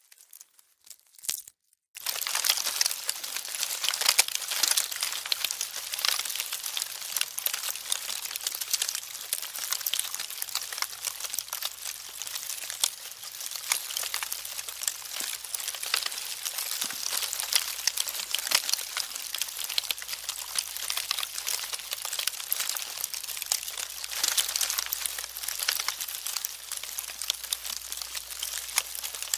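Termites in wood: a dense, continuous crackle of countless tiny clicks, starting about two seconds in after near silence.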